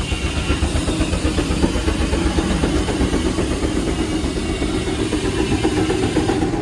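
A 75 HP Case steam traction engine running steadily while belted to a sawmill, with a dense, even mechanical din from the engine and mill.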